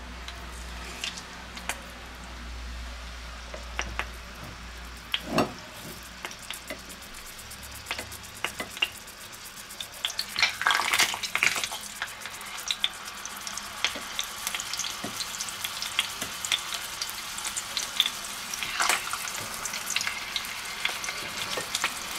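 Ground-beef rolls sizzling and crackling in hot oil in a frying pan as they begin to brown. The crackle grows denser and louder about ten seconds in, as more rolls go into the pan.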